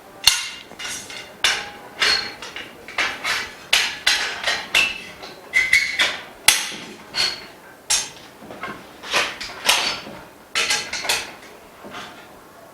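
Frame bars of a dust-free room being fitted and knocked together: a run of sharp, irregular knocks and clanks, two or three a second, some with a brief ring.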